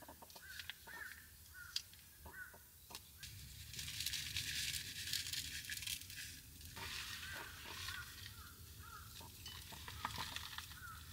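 Faint crinkling and rustling of plastic topping packets as seaweed flakes and bonito flakes are shaken out over takoyaki in a paper box, with small handling clicks. A denser rustle lasts about three seconds near the middle. Short bird calls come in at the start and again later on.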